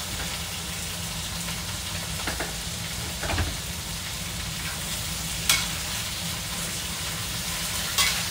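Crayfish sizzling in hot oil in a pan while being stir-fried, a steady frying hiss with a few sharp knocks of the spatula against the pan.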